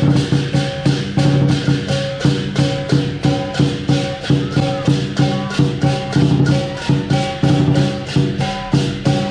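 Lion dance percussion band of drum, cymbals and gong playing a fast, steady beat, with cymbal clashes about four times a second over the ringing drum and gong.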